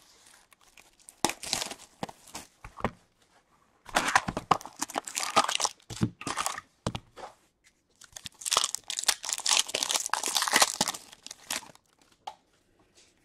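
A box of trading cards and its foil card packs being torn open: tearing and crinkling of wrappers, in several spells of a second or two each.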